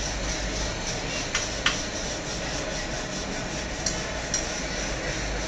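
Hand-held abrasive block scrubbing a bus radiator's metal bottom tank, a steady rasping hiss with four sharp clicks of the block knocking on the metal, two near the start and two in the second half.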